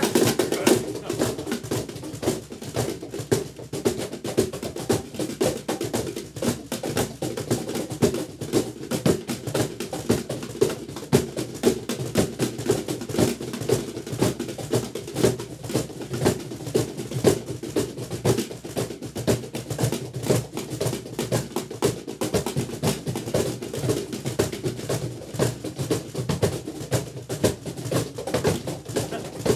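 Several cajons, one of them a Meinl, played together by hand. They keep up a steady groove of quick strikes, with deep bass hits and sharper slaps on the wooden boxes.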